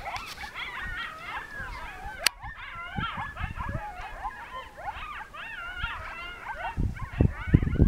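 A pack of coyotes yipping and howling in chorus: many overlapping calls that waver rapidly up and down in pitch. A sharp click comes about two seconds in, and loud low thumps come near the end.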